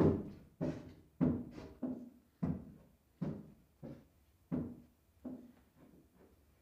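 A slow series of about ten dull knocking thuds, each with a short ringing tail, spaced irregularly about half a second to under a second apart and growing weaker toward the end: the eerie noises in the house.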